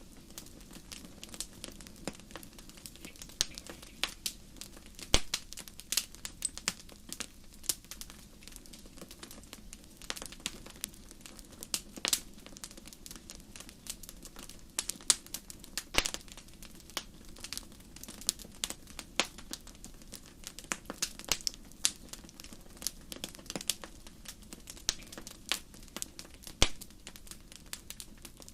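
Irregular sharp crackles and ticks, scattered unevenly through the whole stretch, over a low steady hum.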